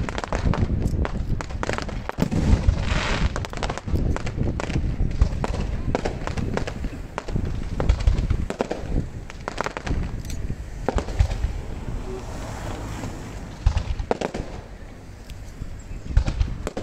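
Aerial fireworks display: a rapid, dense run of shell bursts and bangs with crackling, thinning out and getting quieter toward the end, with a few sharp bangs near the end.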